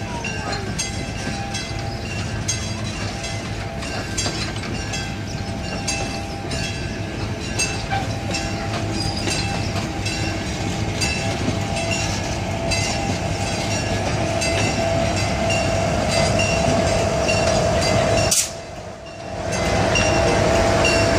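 Southern Pacific passenger coaches rolling slowly past, the wheels clicking at regular intervals over the rail joints above a steady rumble. The diesel locomotive's engine grows louder near the end as it comes alongside. The sound drops out sharply for about a second near the end.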